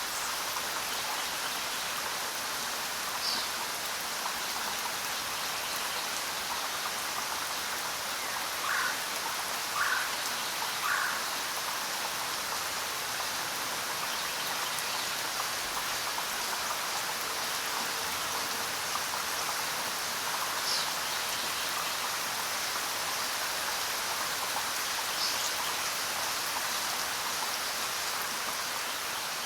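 Steady rain falling in a forest, an even hiss of many drops. A few short bird chirps sound over it, three in a row about a second apart near the middle and a few fainter, higher ones elsewhere.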